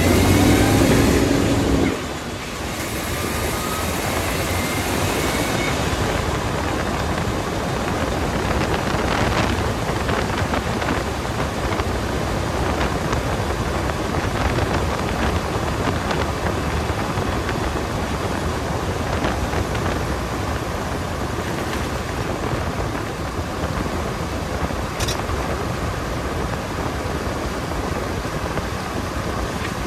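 Vehicle on the move: steady wind and road rumble, with engine hum in the first two seconds and one sharp click near the end.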